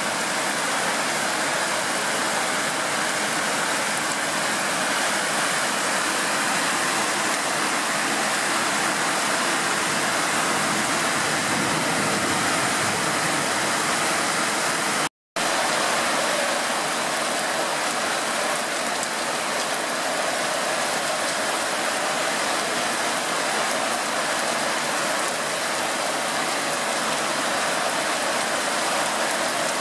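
Hail mixed with rain pelting down: a steady, dense hiss of many small impacts. The sound cuts out completely for a moment about halfway through.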